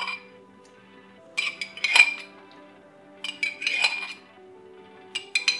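Spoon clinking and scraping in a glass jar of duck fat as it is scooped out over a stainless steel mixing bowl with a whisk in it: three short clusters of clinks, about a second and a half apart. Soft background music underneath.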